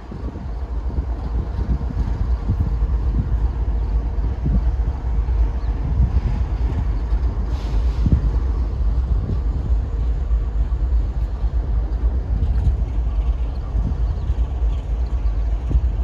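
Steady low rumble of a train departing through the rail yard.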